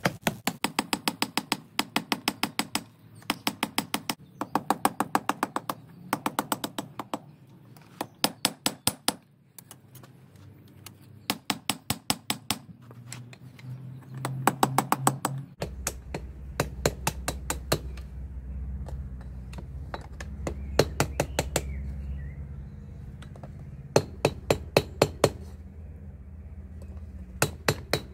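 Hand hammer striking a hot iron ring on a steel anvil in quick bursts of several ringing blows a second, with short pauses between bursts. At first the blows fall on the anvil face to forge-weld the fluxed trap frame, then on the horn to shape the ring. A low steady hum runs underneath in the second half.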